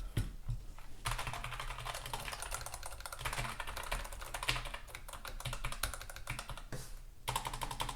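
Fast, continuous typing on computer keyboards: first the Logitech MX Keys membrane keyboard, then, after a short pause about seven seconds in, more typing that likely moves back to the low-profile Keychron K1 mechanical keyboard for comparison.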